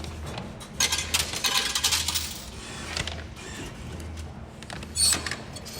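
Light metallic clinking and clatter: a run of clinks from about a second in, and another sharp clink near the end.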